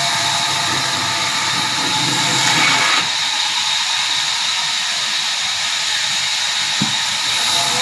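Sawmill machinery running: a steady noisy hiss with a constant high whine. Its lower rumble drops away about three seconds in.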